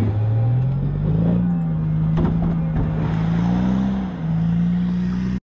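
25 hp outboard motor on an aluminium tinny revving up from low speed and then running steadily under throttle, with a brief dip in revs near the end and a sharp knock about two seconds in. The leg was still fully down in shallow water, which the driver calls an error that could break the motor.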